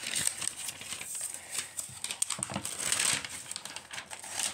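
Paper and cardboard packaging rustling as an iPad is lifted out of its box, with irregular small clicks and taps.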